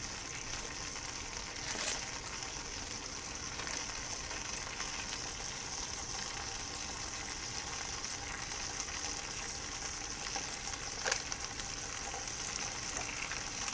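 A beef roast and melted butter sizzling steadily in a hot pot. There is a light tap about two seconds in and another about eleven seconds in.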